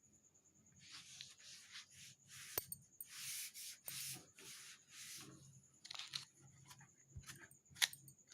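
A cloth wiping the outside of a refrigerator in a series of short rubbing strokes, followed later by a few light clicks and taps.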